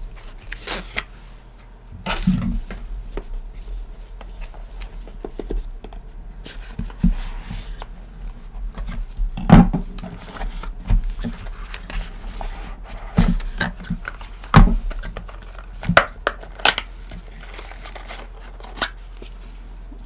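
A small cardboard product box being opened and unpacked by hand: rustling, scraping and sharp knocks of cardboard and the items inside being handled, with the loudest knocks about ten, fifteen and seventeen seconds in.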